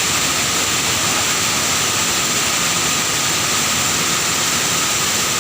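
Large waterfall rushing: a loud, steady, unbroken roar of falling water.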